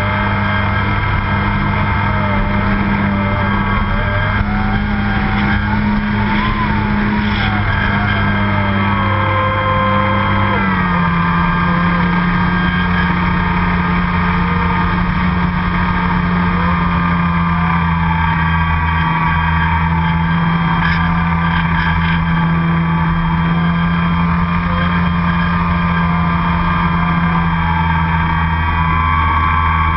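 RC airplane's motor and propeller running steadily in flight, heard from a camera riding on the plane. The drone drops slightly in pitch about ten seconds in and then holds steady.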